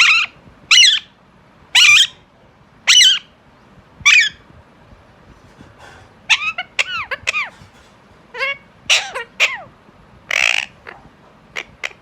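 Pet parrot squawking loudly: a row of about five sharp calls roughly a second apart, then after a short pause quicker runs of shrill calls that sweep up and down in pitch.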